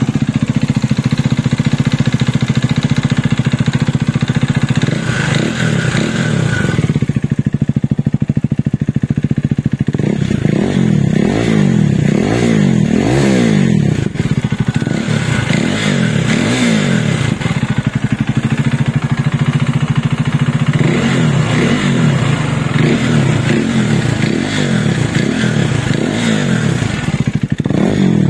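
KTM RC 390's single-cylinder engine running after its rebuild. It settles at a steady idle, then from about ten seconds in it is blipped up and down repeatedly, and again near the end. With the tappet shims reset and a new timing chain, the top-end noise is largely gone; a slight cam noise remains, which the mechanic puts down to a faulty camshaft not yet replaced.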